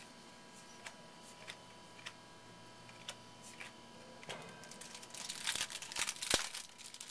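Baseball cards being handled and flipped through by hand: light scattered clicks, then denser soft rustling and crinkling from about four seconds in, with one sharper click a little after six seconds.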